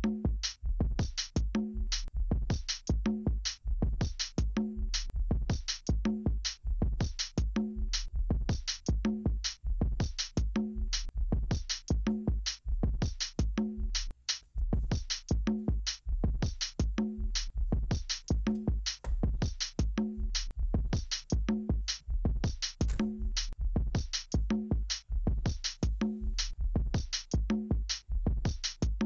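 Electronic background music with a steady drum-machine beat, dropping out for a split second about halfway through.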